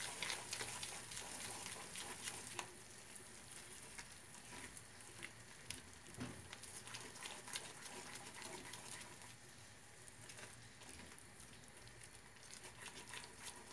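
Curd cheese and semolina mixture cooking in a non-stick pan on a gas hob: faint sizzling with scattered small crackles, and a spatula scraping and stirring through it.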